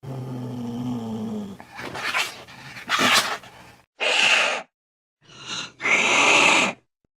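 Angry cat growling low for about a second and a half, then hissing and spitting in several sharp bursts.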